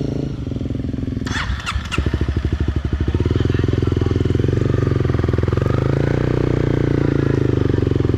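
Off-road motorcycle engine chugging at low, near-idle revs with the throttle barely open as the bike crawls up a trail climb. There are a few sharp clicks and clatter about a second and a half in.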